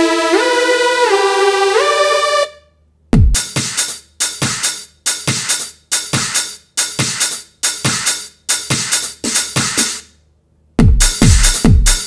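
A synth lead of held notes with pitch glides ends about two and a half seconds in. After a short pause, an electronic synth and drum-machine loop plays: sharp, quickly decaying hits with a falling bass, about two a second. It stops near ten seconds, and a faster, denser loop starts near the end.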